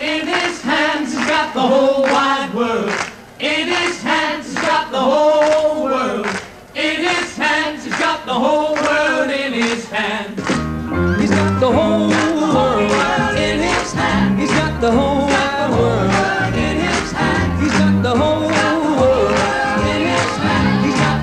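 Male vocal group singing a rock-and-roll number in close harmony over a sharp regular beat, with almost no bass at first. About halfway through, the full backing band comes in with bass.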